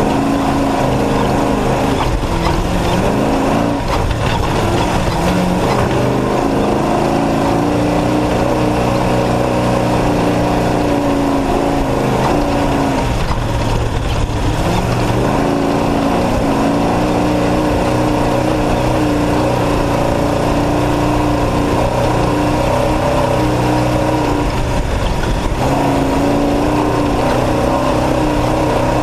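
Off-road race truck's engine running hard under changing throttle, its pitch climbing for stretches and then dropping sharply about 4, 13 and 25 seconds in.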